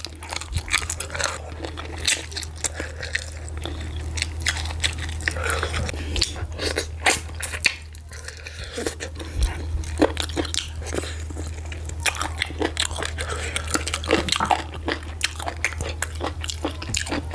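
Close-miked wet chewing and mouth clicks of a person eating garri fufu with slimy ogbono soup by hand, in a rapid, irregular run. A steady low hum sits underneath.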